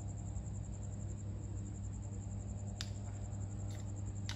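A steady low hum, with three short sharp clicks in the last second and a half.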